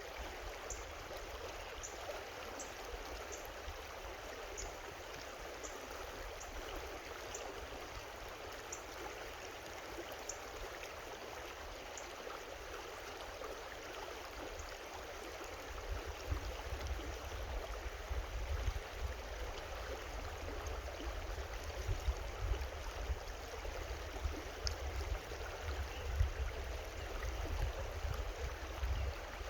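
Creek water running steadily over rocks, an even rushing babble. About halfway through, a low rumble on the microphone grows louder beneath it.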